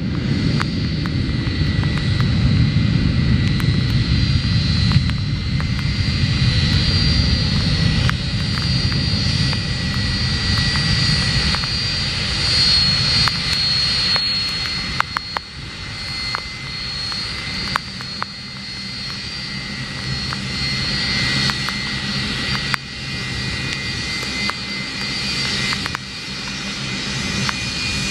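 Boeing 757-200's twin jet engines at taxi power: a steady whine with high tones over a low rumble, the rumble easing off about halfway through as the jet rolls past.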